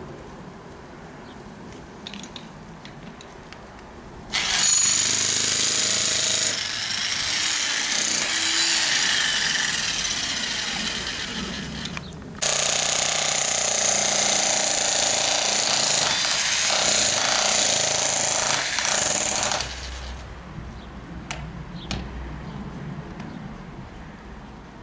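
Handheld electric power tool working into a tree stump, running hard in two long bursts of about eight and seven seconds with a brief stop between them.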